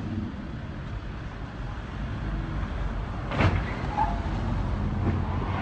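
Street traffic noise, a steady low rumble of passing cars, with one sharp knock about three and a half seconds in.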